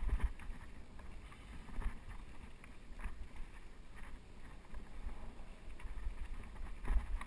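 Mountain bike rolling over a rocky dirt singletrack: a steady low rumble of tyres and wind on the microphone, with short rattles and knocks as the bike jolts over rocks, about two seconds in, at three seconds and near the end.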